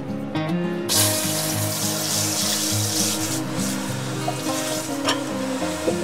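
Water spraying from a high-pressure handheld shower head, starting suddenly about a second in as a steady hiss. Background music plays underneath.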